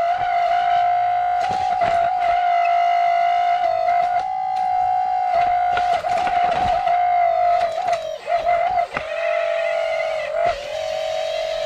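Steady high-pitched whine of an RC construction model's electric motor, dipping briefly in pitch several times in the second half, with scattered clicks.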